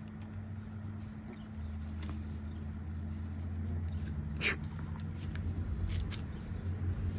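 Two puppies play-fighting, an Alabai puppy mouthing a tiny Great Dane puppy: soft scattered mouthing and scuffling clicks, with one sharp click about four and a half seconds in. A steady low hum runs underneath.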